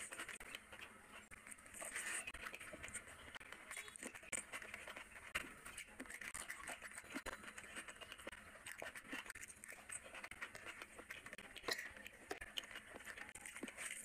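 Bare hand squeezing and mixing cooked rice with curry on a tray: soft wet squishing with many small sticky clicks.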